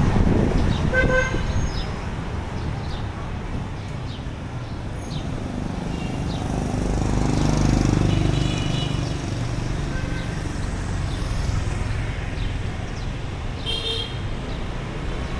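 Street traffic: engines running past, with a rumble that swells and fades as a vehicle passes midway. Short horn toots sound about a second in and again near the end.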